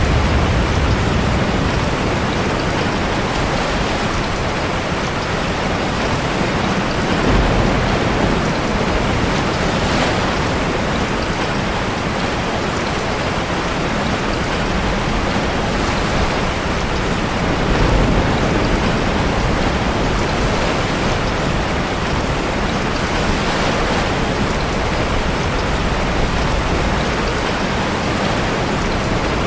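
Steady heavy rain mixed with ocean surf, as heard in a sea cave, with a deeper wave surge swelling up twice.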